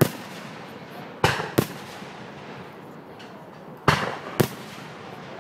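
Aerial firework shells bursting overhead: five sharp bangs, one at the start and then two pairs, each followed by a short echoing tail.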